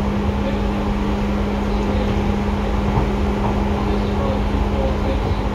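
Seibu 2000 series electric train running, heard inside the passenger car: a steady rumble of wheels and running gear with a steady low hum that stops near the end.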